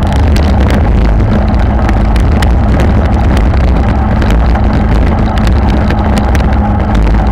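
Wind buffeting on a bike-mounted camera's microphone at about 39 km/h, a loud steady low rumble, with constant small clicks and rattles from riding over brick paving.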